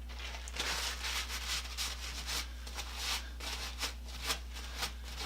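A run of short rubbing or scraping strokes, about two or three a second, over a steady low hum.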